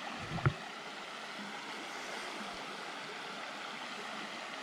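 Shallow creek water flowing over a rocky bed: a steady, even rush. A brief thump about half a second in is the loudest sound.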